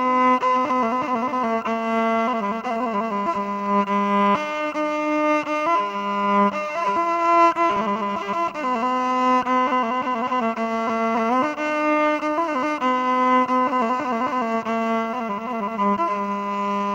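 Instrumental background music: a slow melody on a bowed string instrument, held notes joined by slides.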